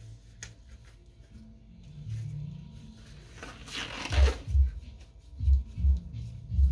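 Background music: low bass notes stepping in pitch, joined about four seconds in by a double kick-drum beat repeating a little over once a second. A brief rustle sounds shortly before the beat comes in.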